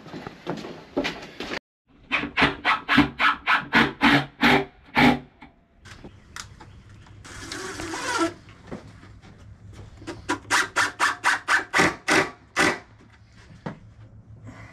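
Cordless drill-driver sinking screws into plywood: two runs of rapid, even knocks at about four a second, with a short whir of the motor between them.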